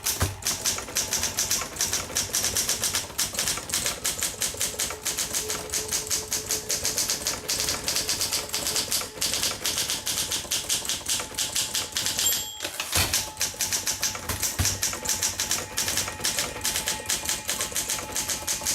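1958 Olympia SM3 manual typewriter being typed on at a steady, fast pace, keys and typebars clacking. About twelve seconds in, a short bell ring is followed by a brief pause, then the typing resumes.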